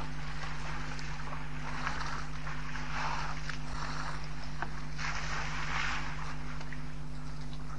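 Water splashing and sloshing around the feet of two African elephants as they wade and push against each other in the shallows, swelling twice, over a steady low electrical hum.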